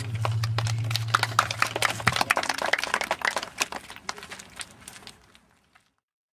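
A small audience clapping: dense, irregular claps that thin out and die away after about five seconds.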